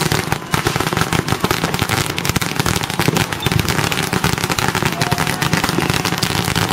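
Many firecrackers going off close by, a dense, unbroken crackle of rapid overlapping cracks, with a brief whistle about five seconds in.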